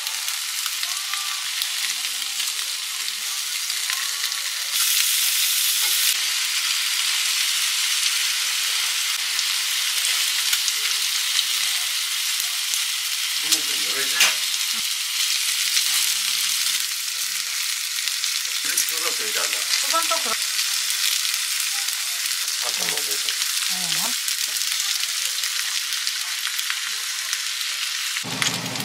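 Thick slices of skin-on pork belly sizzling in a grill pan, a steady frying hiss that grows a little louder about five seconds in and eases off again past the middle.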